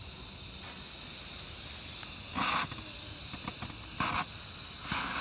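Firework smoke bombs hissing steadily as they pour out smoke, with three short, louder bursts of hissing about two and a half, four and five seconds in as the next smoke bomb's fuse is lit and catches.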